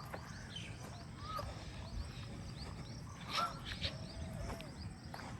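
Birds chirping, with many short calls scattered throughout and a louder call a little past halfway, over a steady low outdoor rumble.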